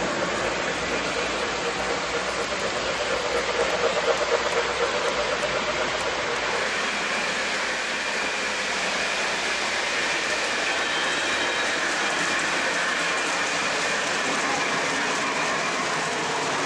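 Lionel O gauge model passenger train running on three-rail track, a steady rushing rattle of wheels on rails. The sound changes character about seven seconds in as the train rounds a curve close by.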